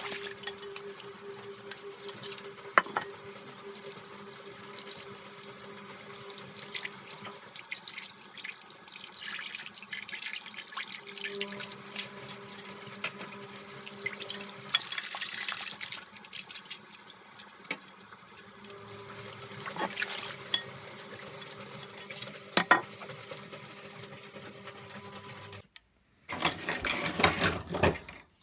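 Tap water running into a sink over a vacuum cleaner's plastic dust canister and filters as they are washed, with a few sharp knocks of plastic. Near the end the water sound stops abruptly and louder clattering follows.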